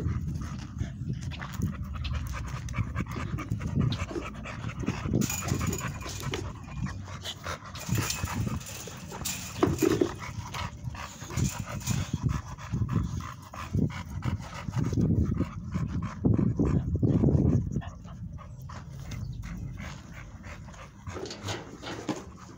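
American bully puppies panting, in uneven breathy bursts, with a stretch of scratchy rattling partway through.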